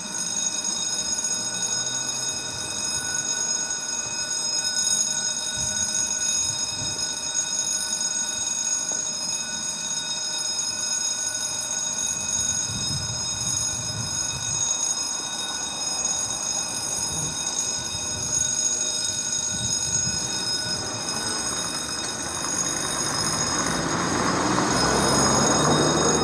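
Belgian level crossing warning bell ringing continuously, switched on abruptly: the crossing has been triggered by an approaching train. A rising rush of noise builds in the last few seconds, and the ringing stops right at the end.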